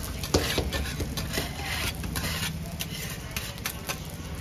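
Egg sizzling and crackling on a hot flat-top griddle as bread rolls are pressed down onto it, over a steady low hum.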